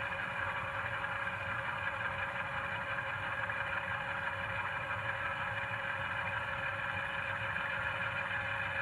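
LokSound 5 decoder's recorded GE Dash9-44CW diesel engine sound, playing through an HO scale locomotive model's small onboard speaker and running steadily.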